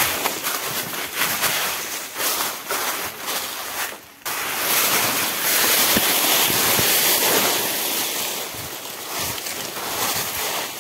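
Rough noise of wind buffeting the microphone, with rustling knocks in the first few seconds; about four seconds in it jumps to a louder, steady rush.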